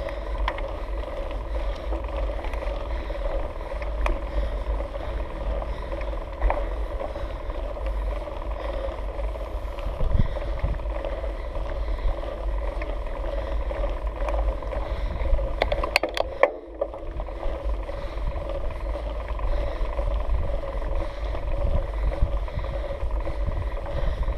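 Mountain bike climbing a steep concrete track: steady low rumble of wind on the microphone and the knobby tyre rolling on the concrete, with a steady hum and occasional sharp clicks and knocks from the bike, a quick cluster of them about sixteen seconds in.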